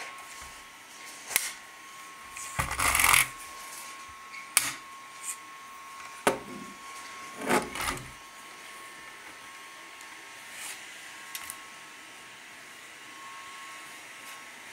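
Diecast Mercedes-Benz SLS AMG model car being handled: a string of sharp clicks and knocks as its gullwing doors are shut, with a longer, louder rustle about three seconds in, then only faint handling noise.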